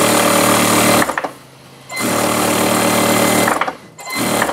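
Industrial sewing machine running at speed, stitching a seam through cloth in two runs with a short stop about a second in. It stops after about three and a half seconds, and a few light clicks follow near the end.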